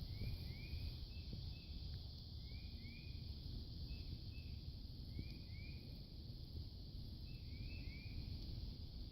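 Outdoor spring ambience: small animal calls, short rising chirps mostly in pairs, repeat every second or two over a steady low rumble and a faint high hiss.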